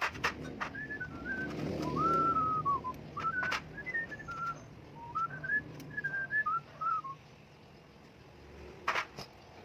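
A person whistling a tune in short gliding phrases that stop about seven seconds in, with a few sharp clicks or knocks at the start, in the middle and near the end.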